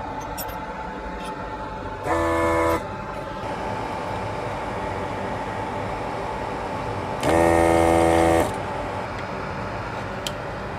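Hakko FR301 desoldering gun's vacuum pump buzzing twice, briefly about two seconds in and for about a second about seven seconds in, sucking molten solder off a heatsink pin joint. A steady low background hum runs between the bursts.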